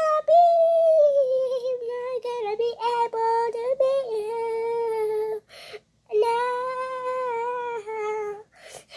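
A child singing long held notes without words: one long phrase that sinks slowly in pitch, a breath about five and a half seconds in, then a second long held phrase.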